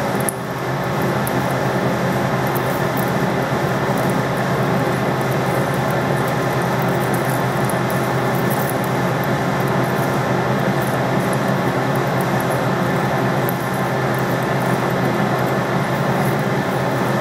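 Metal lathe running steadily, a radius form tool cutting a concave profile on the spinning workpiece for the final pass: a continuous hum of the lathe drive under the hiss of the cut.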